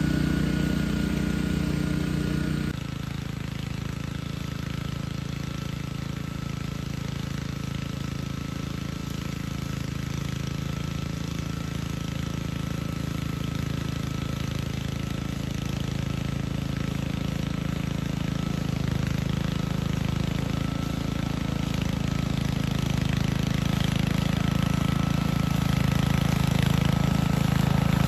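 Honda self-propelled walk-behind grass mower's small engine running steadily under load as it cuts tall grass. The sound drops abruptly a little under three seconds in, then grows steadily louder as the mower comes closer.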